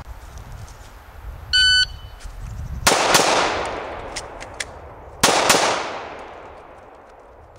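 An electronic shot-timer start beep, then .45 ACP shots from a Glock 21SF pistol: two quick shots about a second after the beep and two more about two seconds later. Each pair rings out and echoes away.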